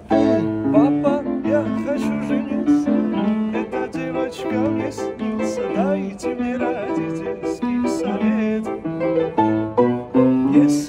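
Music: piano playing throughout, with a melody line above it that slides and curls between notes.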